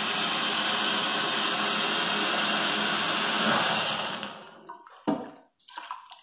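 A boiling-water tap pours a steady, hissing stream into a stainless-steel Instant Pot inner bowl to sterilise it, and stops about four seconds in. A sharp metallic clink follows as the pot is lifted, with a little water sloshing inside it.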